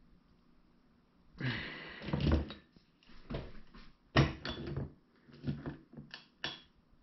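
Hand-held two-lever bottle capper pressing new crown caps onto glass beer bottles: a heavy clunk and creak of the capper about one and a half seconds in, a sharper clunk a little after four seconds, then a few lighter clicks and clacks of the capper and bottles near the end.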